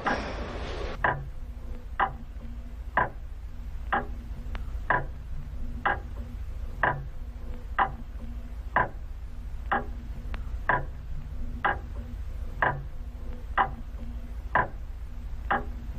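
Pendulum wall clock ticking steadily, about once a second, over a low hum. The ticks start about a second in.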